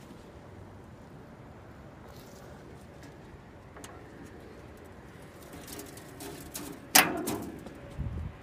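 A riding mower's rusty metal hood being lifted open: quiet handling noise, then one sharp, loud clack with a brief rattle about seven seconds in.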